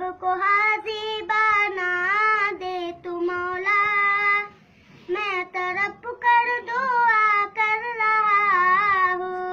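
A young boy singing an Urdu hamd, a devotional poem praising God, solo and unaccompanied in a high voice, with a short breath pause about halfway through.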